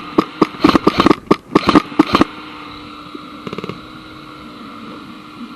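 Airsoft gun firing a quick string of sharp shots, about four a second and unevenly spaced, stopping about two seconds in; after that only a steady hum and a brief patter of faint clicks.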